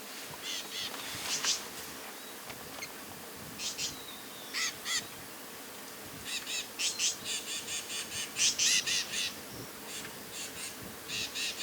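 A bird giving harsh, high calls in quick runs of short notes, several a second, busiest in the second half.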